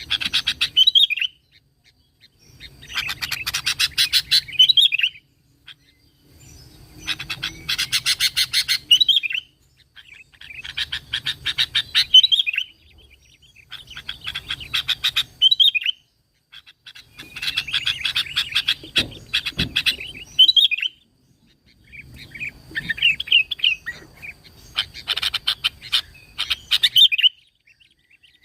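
Sooty-headed bulbul (kutilang) singing: repeated phrases of rapid notes, each two to three seconds long, with short pauses between.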